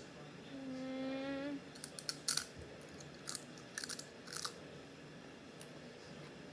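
A short hum held at one pitch, then several sharp crunches over about three seconds as spicy chips are bitten and chewed.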